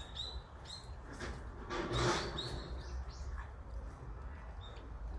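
Small birds chirping in short, high, repeated notes, with a brief louder noisy burst about two seconds in.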